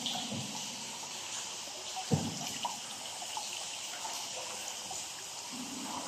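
Water trickling and dripping in a cave river, a steady splashy hiss, with one dull knock about two seconds in.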